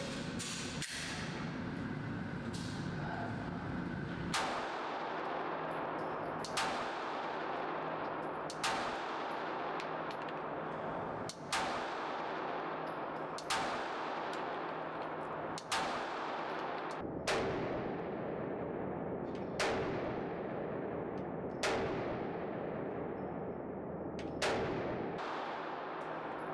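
Ten 9mm pistol shots from a Glock 45 without a compensator, fired singly at a steady pace about two seconds apart, starting about four seconds in; each shot rings on in the echo of an indoor range.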